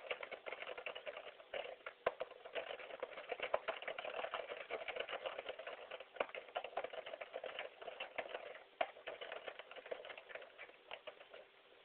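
Fast, continuous clatter of computer keyboard keys typed with both hands, a dense run of key clicks that thins out near the end.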